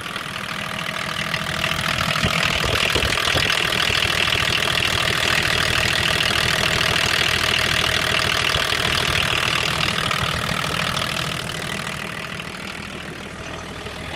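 BMW M21D24 turbo-diesel inline-six idling steadily with its valve cover off, the camshaft and rockers exposed. Its valve clearances have just been readjusted and it runs without a loud valve-train knocking. It is loudest in the middle, close to the open engine bay.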